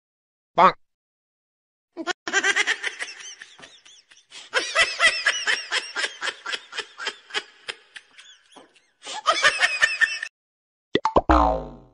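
Dubbed-in laughter: a person laughing in quick repeated bursts from about two seconds in to about ten seconds in, cut off abruptly. Near the end comes a short comic sound effect that falls steeply in pitch.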